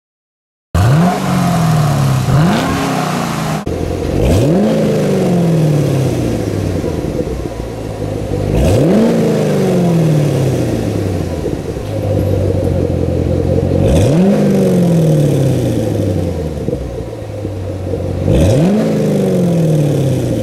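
Camaro SS's LS3 V8 through an NPP aftermarket exhaust, blipped from idle about six times: each rev rises sharply and falls slowly back to idle. The first two blips come close together, then the rest about five seconds apart.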